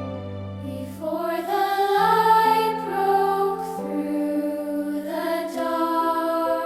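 Slow, soft devotional music: held piano and pad chords, joined about a second in by a wordless vocal line that glides and wavers over the chords.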